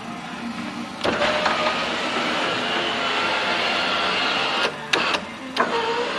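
A small electric motor whirring steadily, starting about a second in, cutting out and restarting twice near the end.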